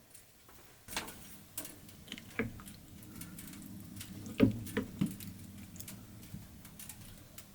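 Scattered light clicks and knocks at an irregular pace, two of them about four and five seconds in louder, with a low hollow thud, over a faint steady low hum.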